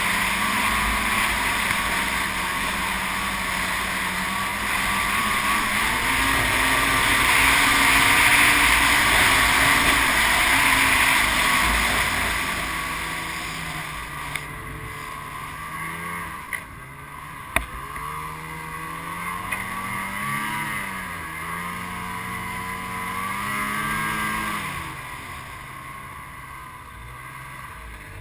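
Snowmobile engine running while riding, with heavy wind rush over the microphone; the engine pitch rises and falls with the throttle, the wind noise easing off in the second half, and a few sharp knocks.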